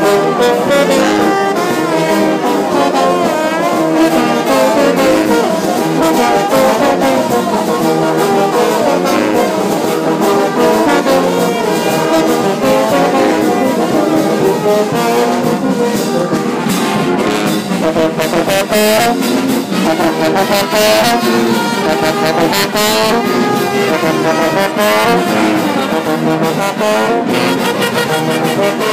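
Live brass band of sousaphones, trombones and trumpets playing loudly and without a break.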